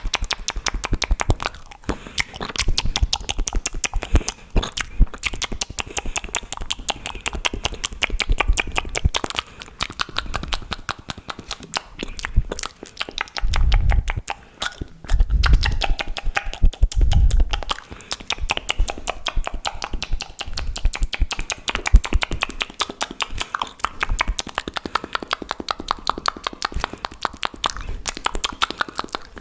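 Fast, wet mouth sounds made close to the microphone: rapid tongue clicks and lip pops, many a second, with a few heavier low bursts about halfway through.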